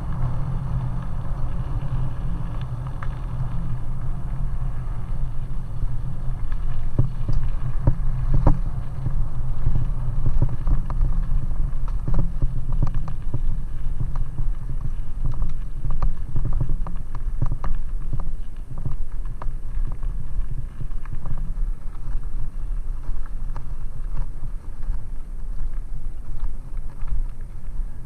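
Bicycle rolling over a loose gravel track, heard from a helmet-mounted camera: a steady low rumble with frequent sharp clicks and rattles from stones and bumps.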